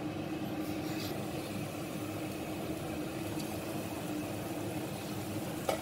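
Steady machine hum with a constant low drone, from the cooktop's cooling fan, over a pan of green bean curry simmering.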